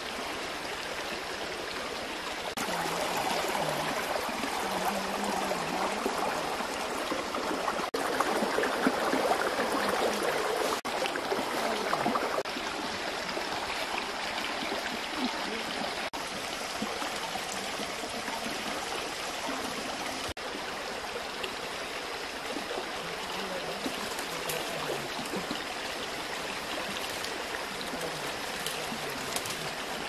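Steady rush of running water, a little louder for a stretch in the first half, with a few brief dropouts.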